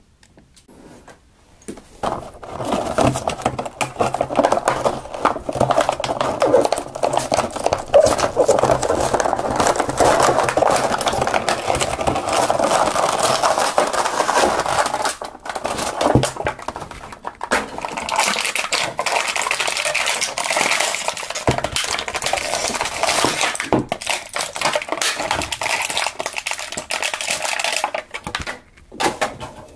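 Mattel action-figure packaging being handled and opened: plastic and cardboard crinkling, rattling and clicking. The noise starts about two seconds in and goes on almost without a break until just before the end.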